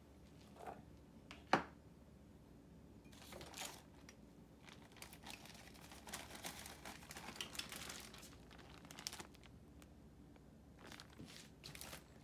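Faint, irregular dry papery crinkling and rustling as garlic cloves are broken from the head and their skins peeled, with one sharp click about a second and a half in.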